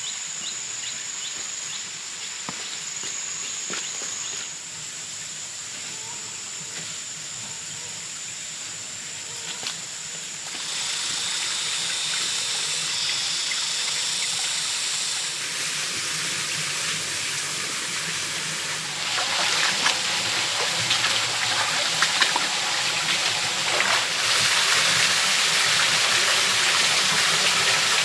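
Forest stream running over rocks, getting louder in steps until the rush of a small waterfall fills the sound near the end. A steady high-pitched drone sits over the water for the first half.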